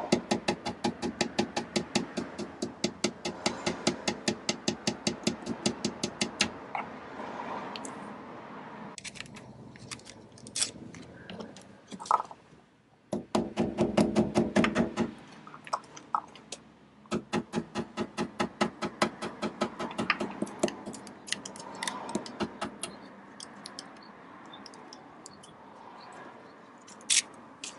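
A mallet striking a long steel drift set against the Dana 35 rear axle, in runs of quick, even metallic taps of about five a second. The runs are broken by short pauses and a few single blows.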